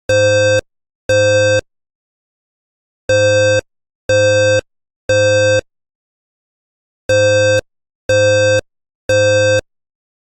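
Fire alarm voice evacuation system sounding its evacuation tone in the temporal-three pattern: buzzy half-second horn blasts in groups of three, each group followed by a pause of about a second and a half. This is the standard signal to evacuate the building.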